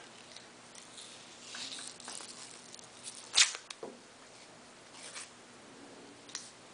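Athletic tape pulled off the roll with a crackling peel, then torn off once, sharply, about three and a half seconds in. Faint rubbing follows as hands smooth the strip onto the foot.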